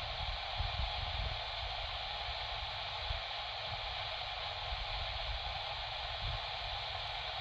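A 1970s CB radio's speaker putting out a steady hiss of static with no voice coming through, over a low uneven rumble.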